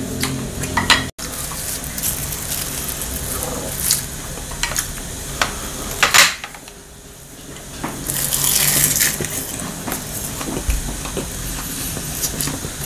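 Mealtime sounds: a wooden spoon and chopsticks clicking against ceramic bowls and a stew pot, with a few sharp clinks and a louder stretch of eating noise about eight seconds in.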